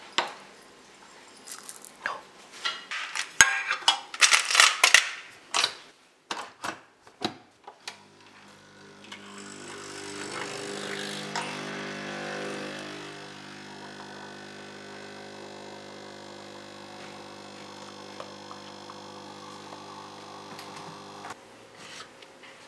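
Cacao nibs shaken out of a glass bottle onto a bowl of yogurt, a quick run of rattles and clicks. Then a Nespresso capsule coffee machine's pump runs with a steady hum while brewing, hissing for a few seconds as the coffee pours, and cuts off suddenly about eight seconds from the end.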